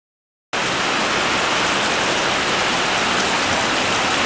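Rain falling steadily: a dense, even hiss that starts suddenly about half a second in, after silence.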